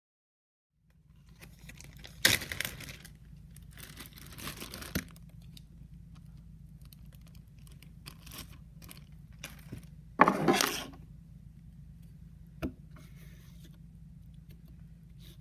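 Handling noise as grey putty is worked on a wooden cutting board: a few short crinkly, scraping bursts, the loudest about two seconds in and about ten seconds in, and a sharp click near the end, over a steady low hum.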